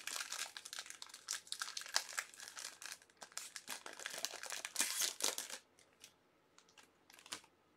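Plastic wrapping on sealed trading-card packaging crinkling and tearing as it is opened by hand. The crinkling is dense for the first five seconds or so, then thins to a few scattered crackles.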